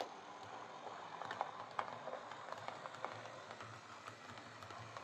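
Heljan OO gauge Class 17 model diesel locomotive running along a model railway track: a faint, steady motor hum with irregular sharp clicks from the wheels running over the track.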